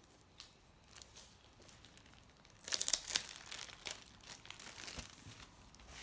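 Crinkling plastic wrapping being handled, with a loud burst of crackling rustle about two and a half seconds in and lighter crinkles before and after it.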